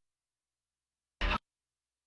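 Dead air on an FM radio stream, then about a second in a brief snippet of programme audio as the station comes back on air.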